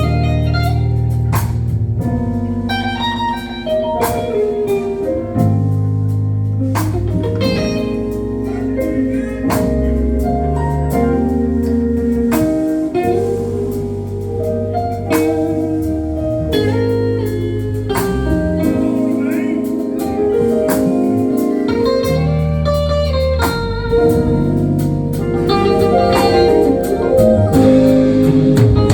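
Live gospel band playing an instrumental passage: guitar lines over a steady bass and regular drum hits.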